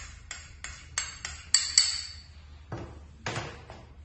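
Light, sharp clinks of a utensil against a small dish, about eight at irregular intervals, the loudest pair a little past halfway, as dried chillies are put in.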